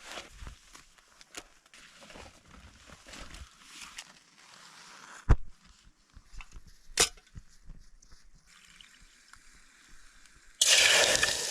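Faint rustling and handling of clothing and gear with two sharp clicks, then near the end a loud steady hiss starts abruptly: a camp stove burner running.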